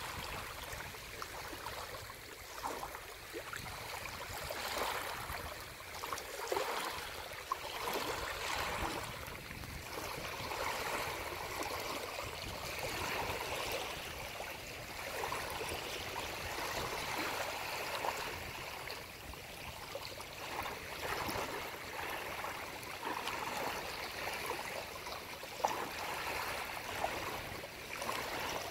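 Surf washing up the shore: a steady rushing of waves that swells and eases every few seconds.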